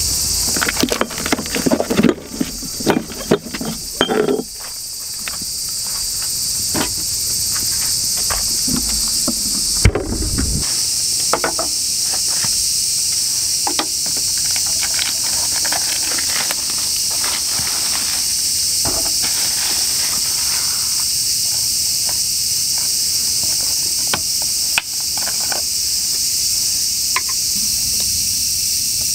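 Steady high-pitched chorus of insects, with scattered light clicks and knocks as a glass, a Hoppy bottle and a shochu carton are handled on a wooden table, and a louder thump about ten seconds in. Background music plays for the first four seconds or so.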